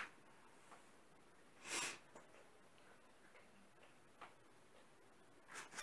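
Near silence: room tone with two faint, brief hissing noises and a soft click.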